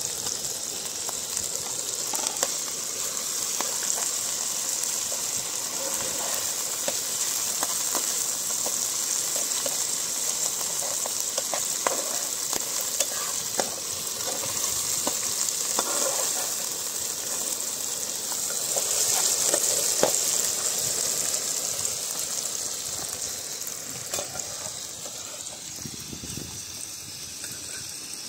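Oysters, onion, potato and tomato sizzling in oil in a frying pan, with the scrape and tap of a metal spatula stirring them. The sizzle eases a little near the end.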